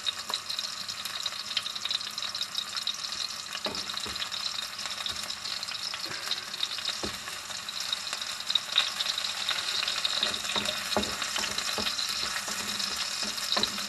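Garlic and ginger sizzling steadily in hot oil in a pan, with a few short clicks of a utensil stirring them.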